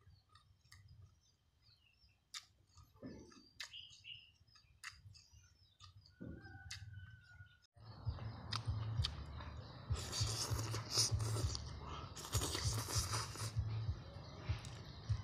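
Eating sounds close to the microphone: a few light chopstick clicks and short bird chirps at first, then from about halfway a mouthful of shredded vegetable salad slurped in and chewed noisily, with two long hissing slurps.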